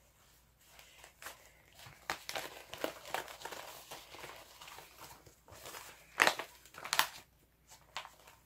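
Knitting-loom kit packaging being handled: irregular crinkling and rustling, with two louder crinkles about six and seven seconds in.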